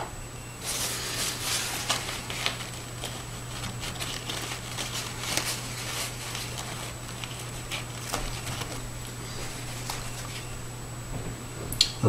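Paper towel rustling and crinkling in irregular bursts as a wet paintbrush is wiped dry in it.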